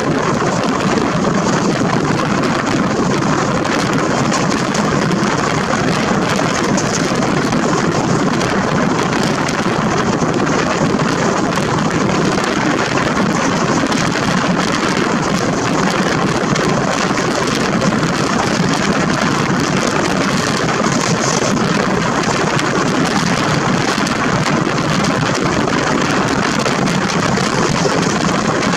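Steady rush of wind and wheel-on-rail running noise from an ICF passenger coach at speed, heard from its open door with wind on the microphone.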